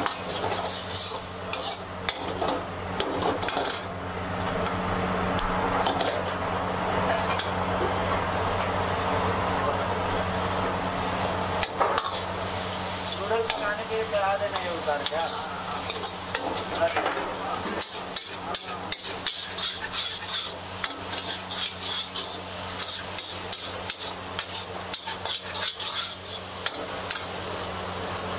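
Veg Schezwan noodles sizzling in a hot iron wok while a steel ladle and spatula stir and toss them, scraping and clicking against the wok many times, over a steady low hum.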